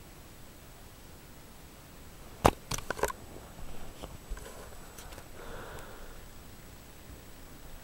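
Handling noise from a handheld camera: one sharp knock about two and a half seconds in, a quick run of smaller clicks just after, then a few seconds of soft rustling.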